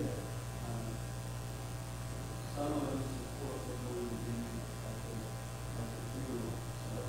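Steady electrical mains hum in the sound system, with a faint voice speaking away from the microphone about a third of the way in and again near the end.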